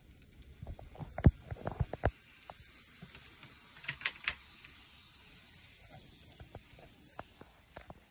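Tomix N-gauge 225 series model train running on sectional track, a faint steady running noise. A few sharp knocks come about one to two seconds in, and a cluster of clicks around four seconds in.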